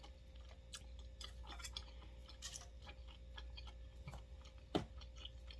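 A person chewing food: faint, irregular mouth clicks and small crunches, with one louder click near the end.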